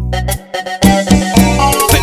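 Electronic keyboard playing cumbia: a held chord cuts off, then the beat starts just under a second in, with bass and drum hits.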